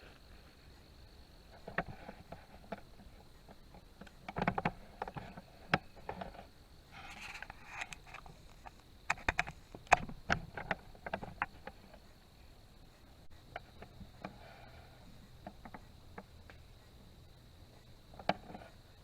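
Footsteps in dry leaf litter and brush on a forest floor: irregular crackles and snaps in clusters, busiest around four to six seconds and again around nine to eleven seconds in, with one last step near the end.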